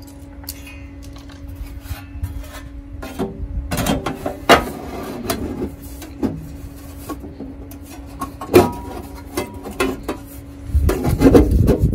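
Stainless steel cover of a landscape-lighting transformer being handled and fitted back onto its box: sheet metal scraping and clanking, with sharp knocks about four and a half and eight and a half seconds in and a burst of handling near the end. A steady low hum runs underneath.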